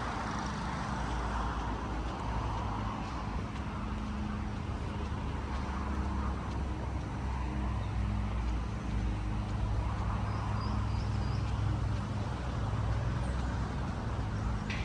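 Steady rumble of road traffic, with a few short high chirps about two-thirds of the way through.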